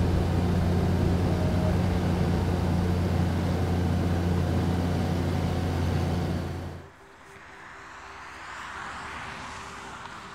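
Steady, loud drone of a light propeller aircraft's engine heard from inside the cockpit, with a low steady hum. It cuts off abruptly about two-thirds of the way through, and a quieter whoosh of a vehicle passing by follows.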